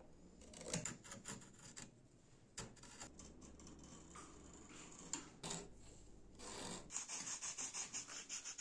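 File or rasp scraping across wild plum wood by hand, in irregular strokes that turn into a quick run of short strokes, about six a second, near the end.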